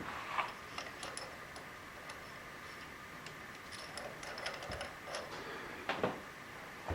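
Scattered light metallic clicks and ticks of small steel transfer punches being handled and tried for fit in a hole, with a couple of duller knocks near the end.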